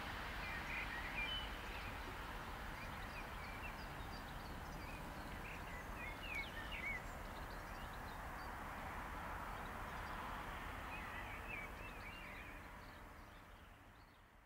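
Birds chirping in short bursts of calls over a steady outdoor background hiss, all fading out near the end.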